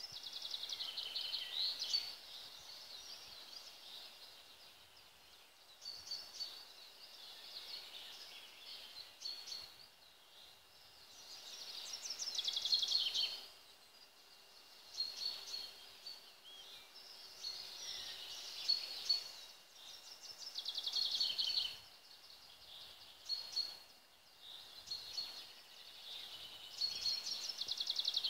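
Small songbirds singing in the forest: short, high trilled phrases repeated every few seconds over a faint steady hiss.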